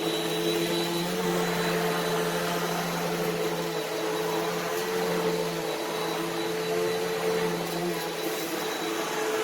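Simplicity Allergy upright vacuum cleaner running over carpet: a steady motor hum with a thin high whine above it.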